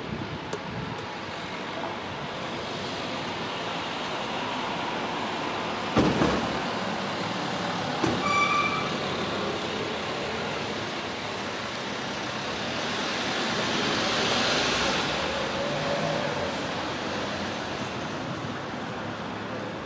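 Steady outdoor background rush that swells a little about fourteen seconds in. A sharp knock comes about six seconds in, and a short high tone a little after eight seconds.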